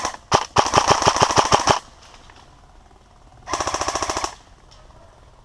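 Airsoft electric rifle firing on full auto, a rapid rattle of shots in bursts: a long burst in the first two seconds, then a shorter burst about three and a half seconds in.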